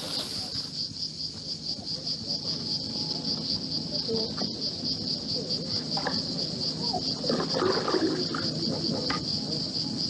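Insects chirping in a fast, even, high-pitched pulsing trill, over a low steady hum, with a few faint scattered sounds rising about six to nine seconds in.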